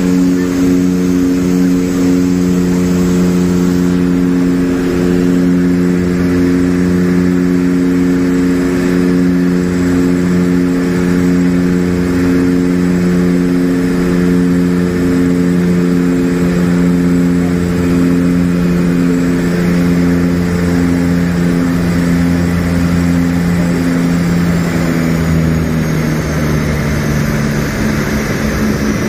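Twin Otter's turboprop engines and propellers droning steadily, heard from inside the cockpit on final approach. Near the end the drone drops slightly in pitch and fades as the power levers are pulled back for the landing.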